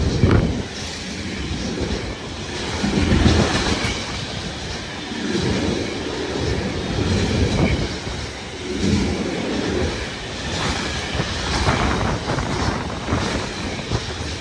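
Intermodal freight train of pocket wagons loaded with semitrailers passing close at speed. The rumble of its wheels swells and fades every few seconds as each wagon goes by, with sharp clicks and clatter from the wheels.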